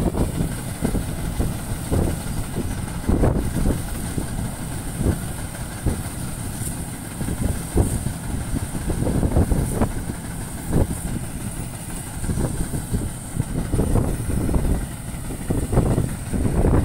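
John Deere 5310 tractor-mounted combine harvester running as it cuts rice: a continuous low rumble of diesel engine and threshing machinery that swells and dips unevenly.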